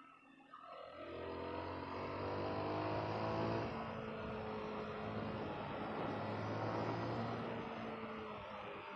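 SYM VF185 motorcycle's single-cylinder engine pulling away under throttle: it comes up from quiet about half a second in, climbs in pitch for a few seconds, then holds a steady cruise and eases off near the end, over road and wind noise.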